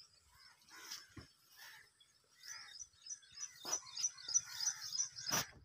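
A small bird calling in a quick series of high chirps, about six a second, over rustling and scraping in dry undergrowth. Two sharp knocks near the end, the second the loudest.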